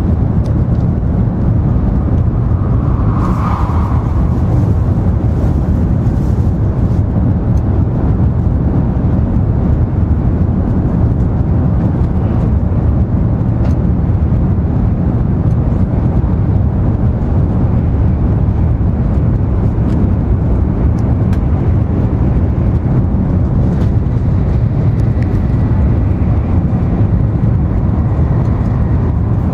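Steady low rumble of an N700 series Shinkansen running, heard from inside a passenger car: wheel, track and air noise coming through the body. A brief hiss comes about three seconds in, and a faint high whine sounds near the end.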